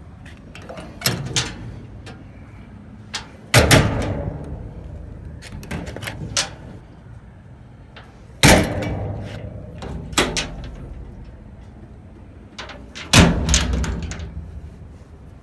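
Steel toolbox compartment doors on a truck's service body being worked: small latch clicks, then three loud metal bangs with a ringing tail, about five seconds apart, as the doors are swung shut.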